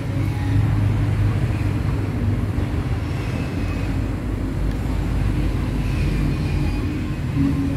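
Steady low background rumble with a hum, without breaks or distinct strokes.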